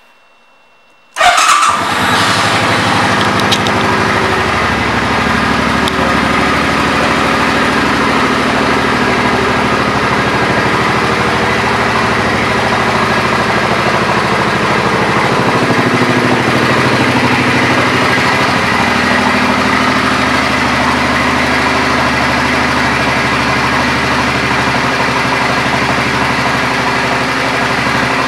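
2006 Suzuki Boulevard C50's 800 cc V-twin engine starting about a second in, then idling steadily.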